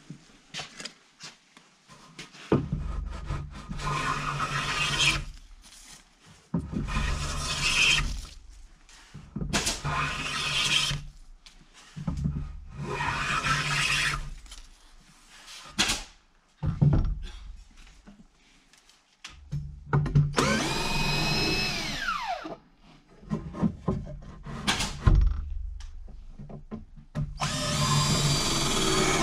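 Cordless drill run in repeated bursts of one to three seconds, working into a wooden handrail, with short pauses between runs. One run ends in a falling whine as the motor slows.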